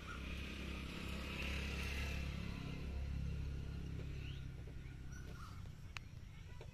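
A motor vehicle's low engine rumble swells over the first few seconds and then fades, with a few faint bird chirps and a single click near the end.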